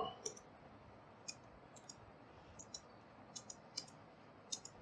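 Faint, irregular clicks of a computer keyboard and mouse during code editing, about a dozen, some in quick pairs.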